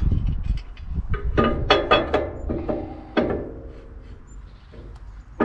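Clinks and knocks of metal parts being handled as a bolt is fitted through the control lever of a log splitter, several of them ringing briefly. The knocks cluster in the middle and fade out toward the end.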